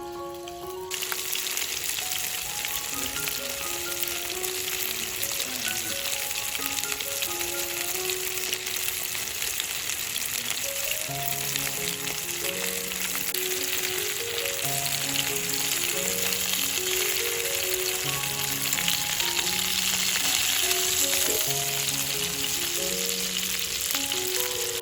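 Food frying in hot oil in a pan: a steady sizzle that starts suddenly about a second in and keeps up.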